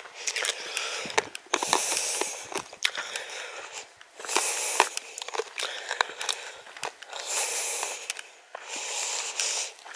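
Footsteps on a dry dirt footpath, with many short irregular crunches. Under them, the walker's breathing comes in hissy swells every second or two, close to the microphone.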